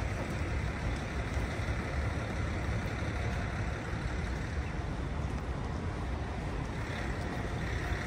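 Steady outdoor city ambience: an even hiss over a low rumble, with no distinct events standing out.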